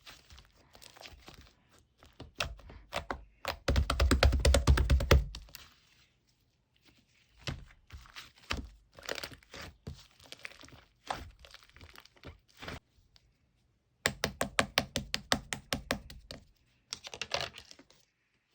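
Homemade slime being pressed and squeezed by hand, making strings of sharp pops and crackles. A dense, loud run of pops comes about four seconds in, and quick rapid pops come again near the end.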